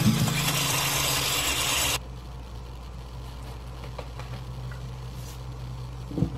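Electric hand mixer running as it beats egg batter in a glass bowl, switched off abruptly about two seconds in, leaving a low steady hum. A single soft knock near the end.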